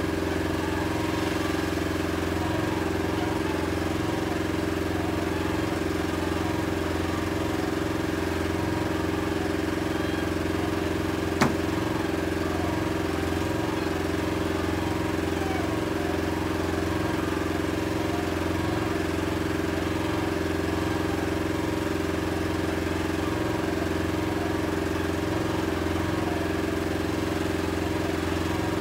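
Small boat's outboard engine running steadily at low speed, an even hum. A single sharp click cuts through about eleven seconds in.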